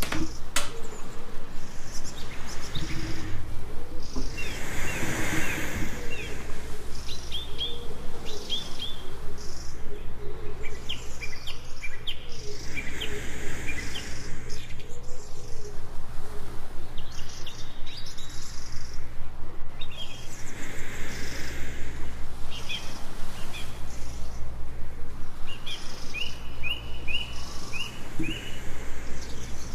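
Jungle birds chirping and trilling in short quick runs over a steady low rumble, with a soft breathing hiss swelling about every eight seconds.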